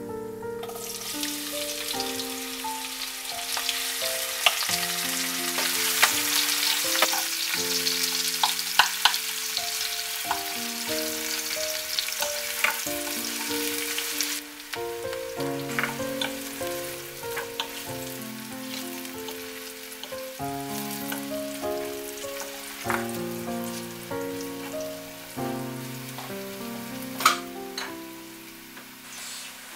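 Sliced onions frying in hot mustard oil: a loud sizzle for about the first half that turns softer after, with a few sharp knocks of a wooden spoon stirring against the pot. Instrumental background music with a melody of single notes plays throughout.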